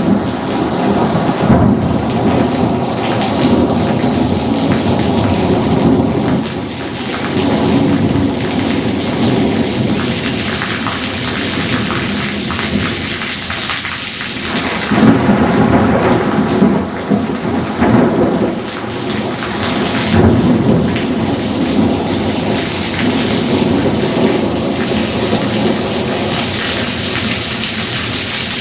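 Thunderstorm: a heavy downpour of rain with thunder rumbling, swelling loudest about halfway through.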